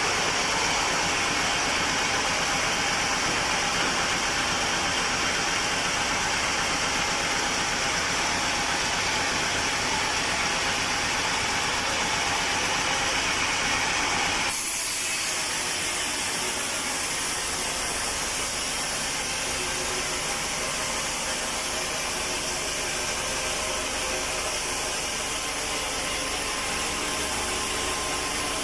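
Sawmill machinery running steadily with a dense mechanical noise; about halfway through the sound changes abruptly to a somewhat quieter, thinner running noise.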